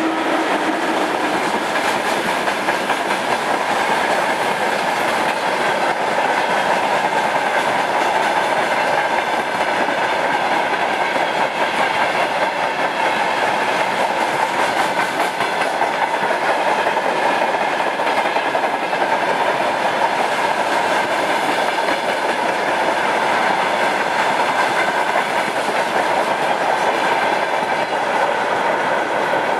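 Freight train of boxcars and tank cars rolling past at speed: a steady noise of steel wheels running over the rails. A low steady tone dies away about a second in.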